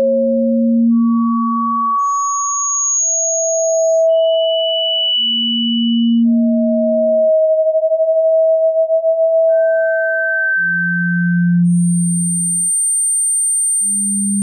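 A sequence of pure sine tones for tinnitus sound therapy. Each tone lasts about two seconds and fades in and out at a new pitch, jumping between low hums and high whistles, often with a low and a high tone sounding together. About halfway through, two close tones overlap and beat with a wobble.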